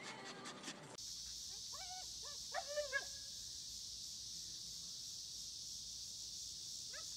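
A husky giving a quick run of short, pitched calls that bend up and down, then starting another call near the end, over a steady high hiss.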